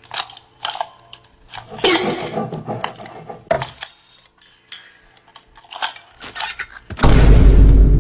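A string of short clattering clicks and knocks from animated desk lamps hopping and bouncing, then about seven seconds in a very loud, distorted boom lasting about a second.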